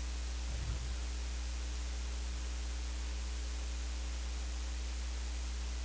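Steady low electrical hum with a constant hiss, the noise of the recording chain itself. A brief low bump comes a little over half a second in.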